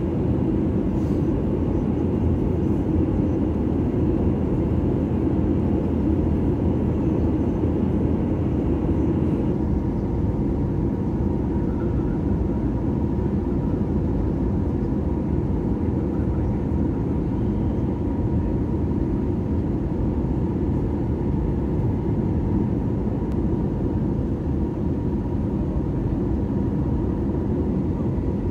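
Steady cabin noise of an Airbus A320 on approach, heard inside the cabin over the wing: a low rumble of airflow and its IAE V2500 engines, with a faint steady tone. About ten seconds in, a higher hiss drops away.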